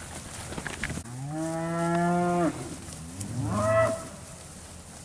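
Angus-cross steers mooing: one long, steady moo about a second in, then a shorter one about two seconds later. The cattle are calling for feed, excited just before feeding.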